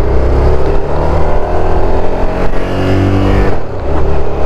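Suzuki SV650S's V-twin engine pulling under throttle, its pitch rising steadily for about three and a half seconds, then dropping and running on lower.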